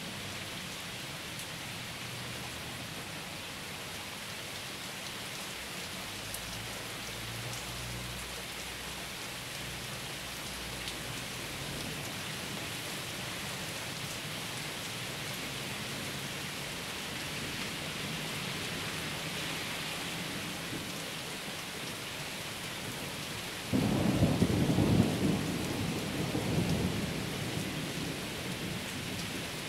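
Steady rain falling, with a faint low thunder rumble in the first few seconds. About 24 seconds in, a sudden loud thunderclap breaks out and rolls on for several seconds before sinking back under the rain.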